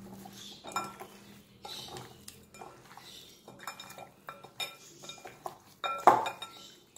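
Hand mixing raw chicken pieces with a dry spice marinade in a glass bowl: irregular knocks and clinks of the meat and hand against the glass, a few a second, the loudest about six seconds in.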